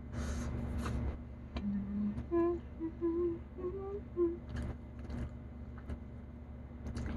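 A woman humming a short, bouncy tune of separate notes with her mouth full while eating, with a breathy rush of noise just before it and small wet chewing clicks after it.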